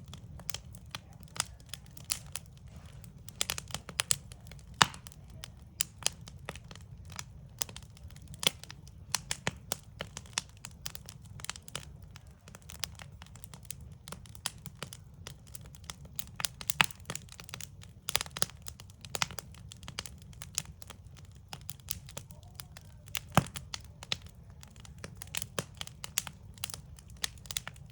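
Backyard wood fire crackling: a continual run of irregular snaps and pops, a few of them much sharper, over a steady low rumble.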